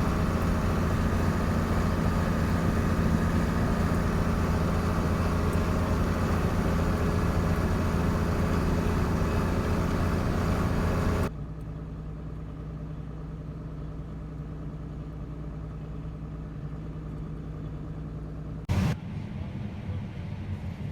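Diesel engine of harvest machinery running steadily. About eleven seconds in, the sound cuts abruptly to a quieter engine, with one short loud burst near the end.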